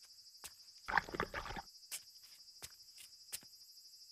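Footsteps of zori sandals on wooden floorboards: a louder cluster of scuffing steps about a second in, then light single clicks about three a second.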